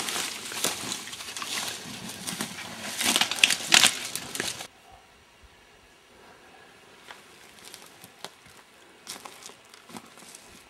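Close rustling and crinkling handling noise with many sharp clicks. It cuts off abruptly about four and a half seconds in, leaving faint scattered clicks.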